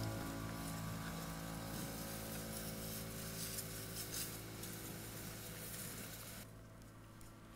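A sustained piano chord from the soundtrack music slowly fading out, over a faint steady low hum.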